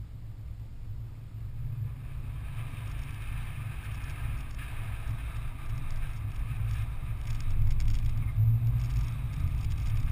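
Toyota 4Runner driving over a dirt off-road track: a low rumble of engine and tyres with small crackles, growing gradually louder.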